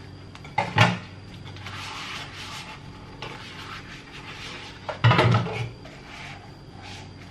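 Dishes being washed by hand: a soapy sponge scrubbing a plastic cup in quick stretches, with two louder clatters of dishware, one about a second in and one around five seconds in.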